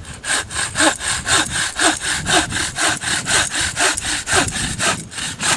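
Hand saw cutting through a piece of hawthorn firewood, with quick, even back-and-forth strokes at about four a second.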